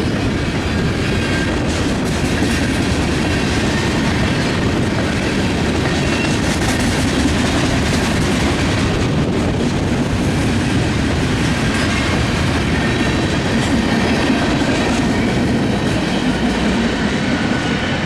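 Railcars of a Canadian National manifest freight train rolling past: a steady, loud rumble and clatter of steel wheels on the rails.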